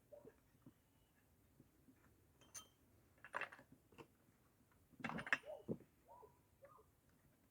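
A few faint, scattered clinks and knocks of small metal parts and tools being handled, with quiet gaps between them.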